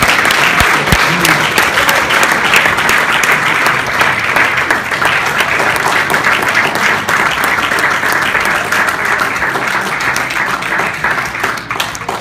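Congregation applauding: dense, steady clapping from a small group, thinning out near the end.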